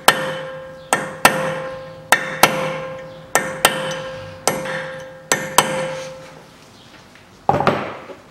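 Hammer blows on a tool held against the staked collar of a Toyota Caldina's front drive-shaft nut, bending the collar back before the nut is undone. About ten sharp metallic strikes, many in quick pairs, each leaving a steady metal ring that dies away after the blows stop about six seconds in. A brief clatter follows near the end.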